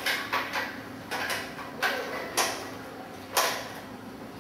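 E-bike conversion kit's lithium-ion battery pack being handled and seated on its rear-rack mount: about six sharp clicks and knocks of the case against the metal rack, spaced irregularly.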